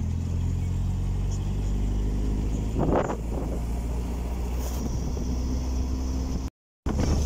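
Car engine and road noise from a moving car: a steady low drone. A short, louder noise comes about three seconds in, and the sound cuts out completely for a moment near the end.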